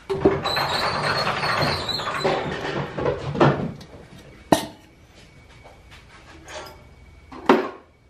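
Goat milk being poured from one stainless steel milk pail into another for about two and a half seconds, then a few sharp clinks and knocks of the metal pails and their wire handles as they are handled and set down.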